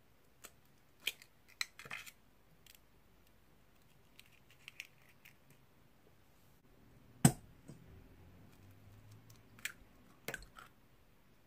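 Raw eggs cracked by hand into a stainless steel bowl: crisp snaps and crackles of eggshell breaking and being pulled apart, in two clusters, with one sharp, much louder knock about seven seconds in.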